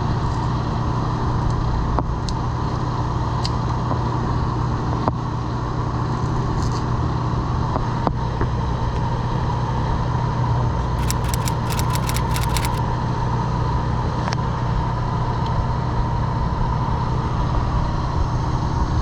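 True commercial refrigerator's refrigeration unit running steadily, a constant hum of compressor and fan while it is charged with R134a refrigerant. A quick run of sharp clicks sounds about eleven seconds in.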